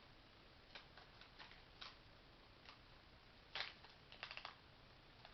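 Faint, scattered crackles and clicks of an MRE cracker packet being opened and handled, with a short quick run of crackles in the second half.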